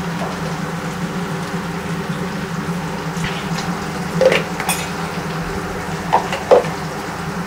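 Metal ladle stirring meat and chilli powder frying in oil in a cooking pot, over a steady hum. Four sharp clanks of the ladle against the pot come in two pairs, about four and six seconds in.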